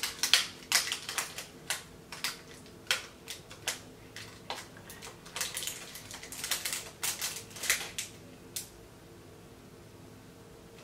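Plastic snack wrapper crinkling and crackling in irregular bursts as it is unwrapped by hand, stopping about two seconds before the end.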